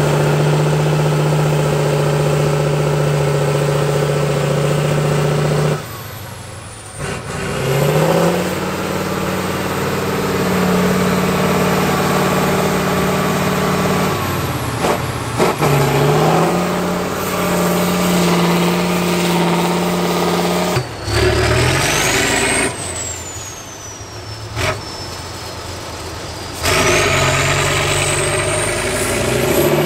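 Turbo-diesel engine of a six-wheeled trial truck working hard in deep mud. The engine note falls away abruptly several times as the throttle is lifted and climbs back up as it revs again, with a high turbo whistle rising and falling along with it.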